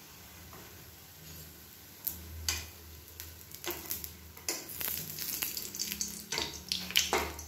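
Sweet appam sizzling in shallow oil and ghee in a non-stick kadai. From about two seconds in, a steel slotted turner and a wooden spatula scrape and tap against the pan as the appam is worked loose to be lifted out.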